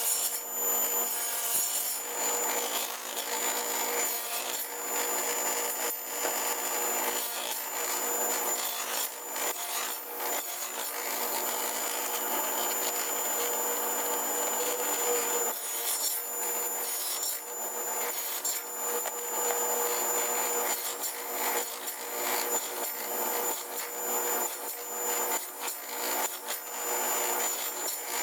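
Power saw running and cutting wood while a board is turned on a pivot to cut out a circle: a steady motor hum and high whine under an uneven rasping cut.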